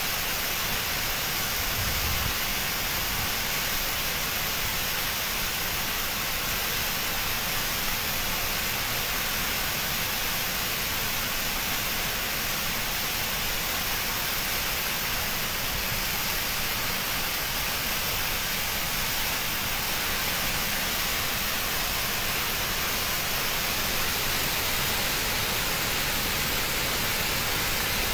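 A dam's open sluice valve discharging a thick jet of water under pressure into the river below: a steady, hissing rush of water that does not change.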